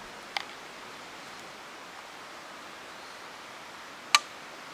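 Two metallic clicks from a flintlock rifle's lock as it is made ready to fire: a light click just after the start and a sharp, louder snap near the end, over a steady outdoor hiss.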